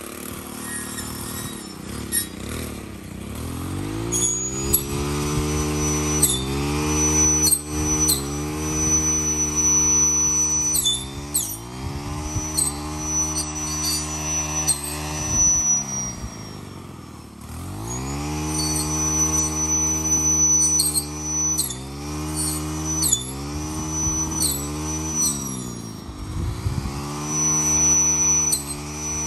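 Small gas engine of a handheld cutting tool revving up and easing off over and over as it cuts through thick, tall weed stalks. It drops to a low idle twice, around the middle and near the end, before revving up again, with sharp snaps scattered through.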